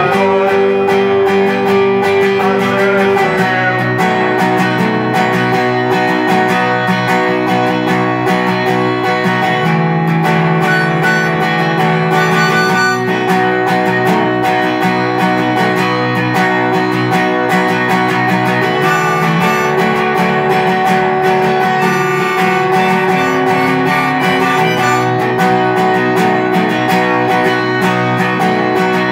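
Acoustic guitar strummed steadily in an instrumental passage, without singing.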